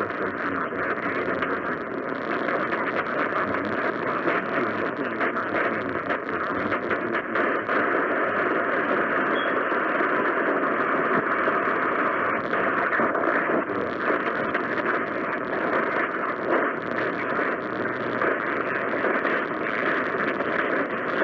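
Radio receiver hissing steadily with static, with no voice or alert tones on the channel.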